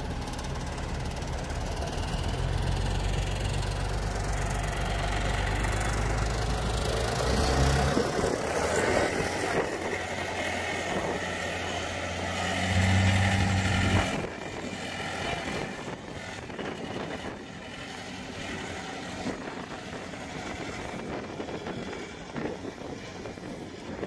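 Farm tractor's diesel engine running as it pulls a loaded forestry log trailer past, a steady low drone that swells briefly about halfway through and then drops away, leaving a quieter background of road noise.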